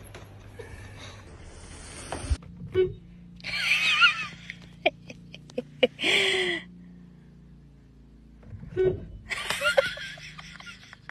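A person laughing in three short bursts inside a car, with a few light clicks in between.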